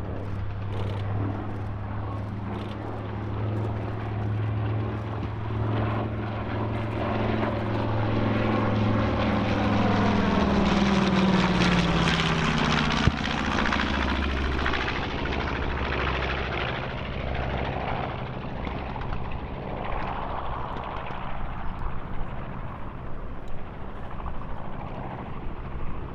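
B-25J Mitchell bomber's two Wright R-2600 radial engines and propellers on a low fly-by pass. The engine note builds as the bomber approaches and drops sharply in pitch as it passes about halfway through, at its loudest, then fades as it climbs away.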